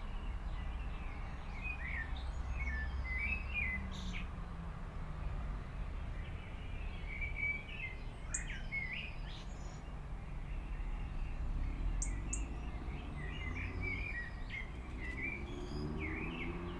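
Small birds chirping and twittering in short, repeated phrases throughout, over a steady low rumble.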